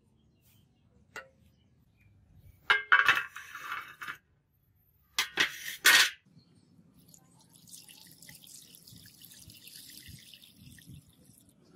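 Rusty sword blade clanking against a steel tray in two loud bursts as it is laid in, then a steady stream of sulfuric acid solution poured from a jug into the tray.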